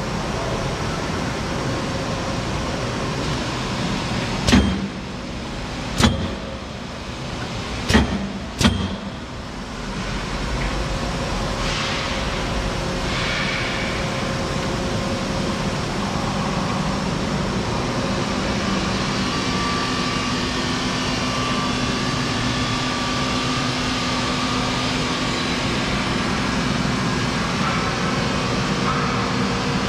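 Machine with pneumatic pull rolls running with a steady hum, with four sharp clunks in the first nine seconds or so as the pneumatic pull rolls close and open. After that a steady motor hum with a faint whine goes on.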